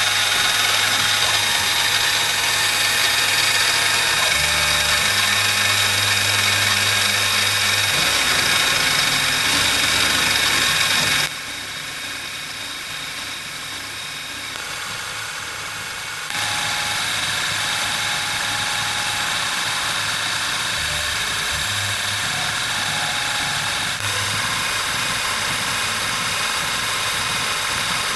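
CNC mini mill spindle running with a small end mill cutting a brass checker: a steady high whine with hiss. The level starts suddenly, drops about eleven seconds in and comes back up about five seconds later.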